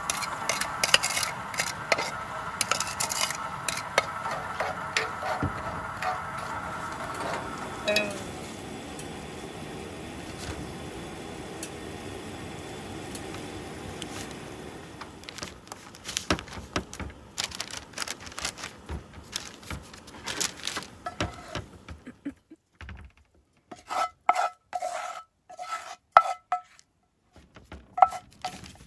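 Dishes and utensils clinking and scraping during food prep, with a mixture being stirred in a glass bowl. In the last few seconds the clatter gives way to a run of short, separate ringing clinks.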